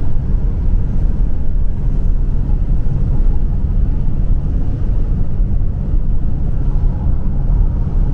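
Steady low rumble of a car driving at road speed, heard from inside the cabin: engine and tyre noise on the road surface.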